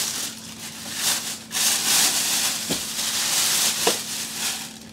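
Plastic bag rustling and crinkling in uneven surges as it is handled and pulled off a slow cooker lid.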